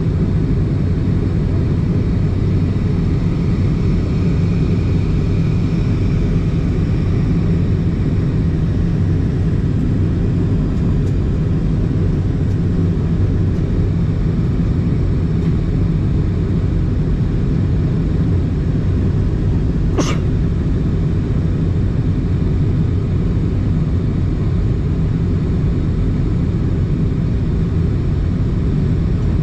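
Steady, loud low cabin rumble of an Airbus A320 in flight, the engine and airflow noise heard from a seat in the rear cabin. A single sharp click sounds about two-thirds of the way through.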